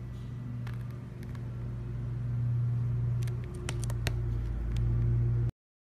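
Domestic cat purring right against the microphone: a steady low rumble that grows louder, with a few soft clicks and rustles of fur against the phone. The sound cuts off suddenly near the end.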